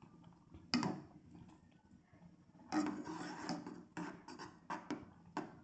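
Noodles being mixed with a utensil that scrapes and knocks against the dish: one sharp scrape about a second in, a longer scraping stretch in the middle, then a few quick scrapes and knocks near the end.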